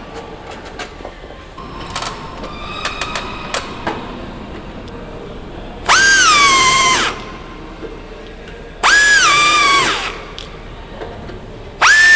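Pneumatic air drill boring rivet holes through a metal reinforcement bracket in three short bursts of about a second each. Each burst spins up to a high whine that sags in pitch as the bit bites, then stops. A few light clicks and taps of handling come before the first burst.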